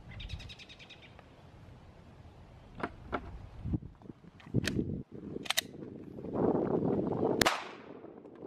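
A few sharp clicks of a Glock 19 pistol being handled and readied, then a single 9mm full metal jacket shot near the end, the loudest sound, with a short ringing tail.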